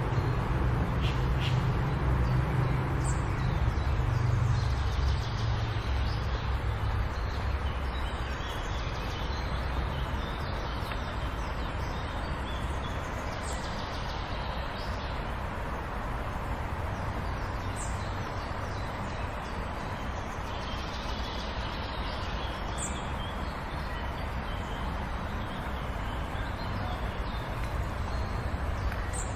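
Outdoor ambience: a steady rumble of distant city traffic, heavier for the first several seconds, with birds calling briefly every few seconds.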